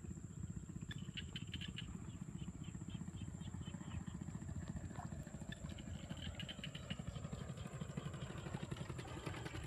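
A small engine running steadily with an even, rapid low pulsing, and a constant high thin whine above it.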